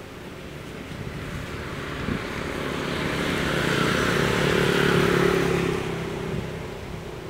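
A motor vehicle passing by: engine and road noise grow steadily louder, peak about five seconds in, then fade.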